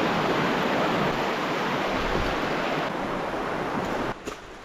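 Stream water rushing, a steady even rush that falls away suddenly near the end.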